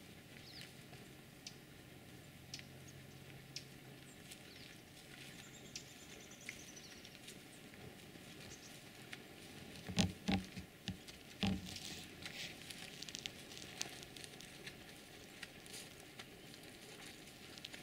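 Faint rustling and small clicks close to the microphone, with a short cluster of soft thumps about ten seconds in.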